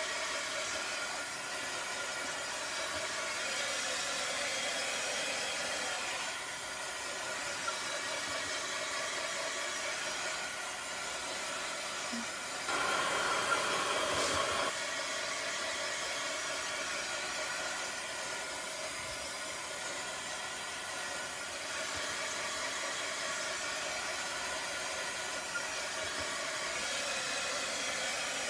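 Handheld hair dryer running steadily, blowing over freshly applied chalk paste to dry it: a steady airy rush with a motor whine. It gets louder for about two seconds around the middle.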